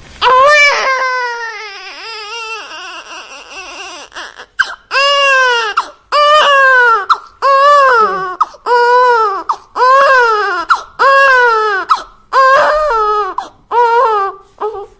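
Infant crying. A long, wavering wail falls in pitch over the first few seconds, then breaks into a run of short cries, about one a second, each rising and falling.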